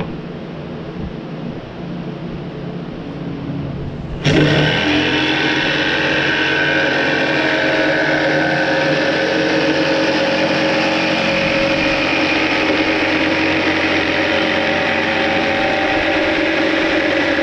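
Black & Decker jigsaw starting suddenly about four seconds in, then running steadily at full speed as its blade cuts through a plywood sheet. Before it starts there is a quieter steady background noise.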